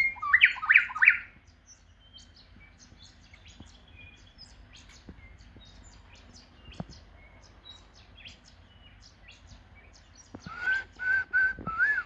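A small bird calling: a loud, quick run of three or four notes at the start, scattered faint high chirps through the middle, then four loud whistled notes in a row near the end.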